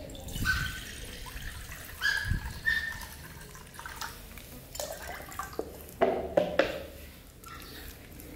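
Water poured from a plastic cup into a ceramic bowl, splashing and trickling unevenly, louder about two and six seconds in.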